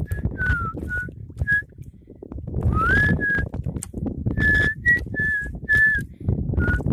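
A person whistling a string of short notes, most held at one pitch and a couple sliding upward, with the densest run between about four and six seconds in. Wind buffets the microphone throughout.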